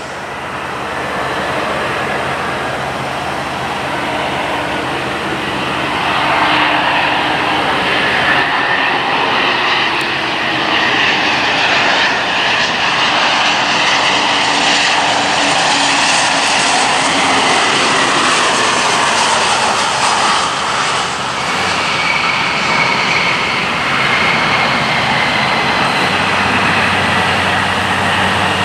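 Embraer E190 airliner's twin General Electric CF34-10E turbofan engines on approach and landing. A steady jet rumble builds as the aircraft passes close, with a high whine running over it.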